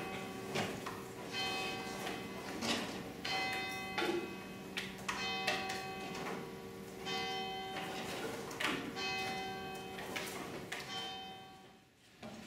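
Church bells ringing, several bells striking in turn about once a second, each stroke ringing on over the next; the ringing dies away near the end.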